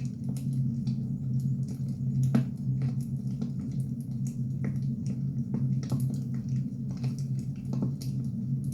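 Burning firewood crackling, with irregular sharp pops over a steady low rumble.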